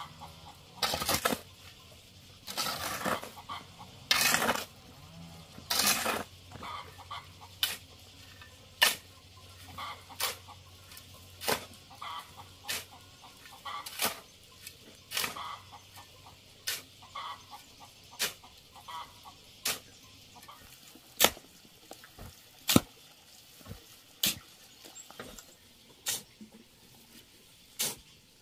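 A steel hoe dragging and chopping through a dry sand-and-cement mix on the ground. The first few strokes are longer scrapes, then come short, sharp strikes about every one and a half seconds.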